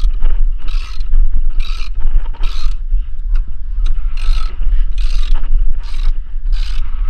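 Ratcheting chain snap cutter being worked around old cast iron sewer pipe, its handle clicking in strokes a little faster than once a second, over a steady low rumble.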